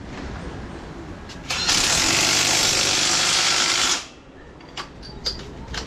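A power tool runs in one loud burst of about two seconds and cuts off abruptly, followed by a few light clicks.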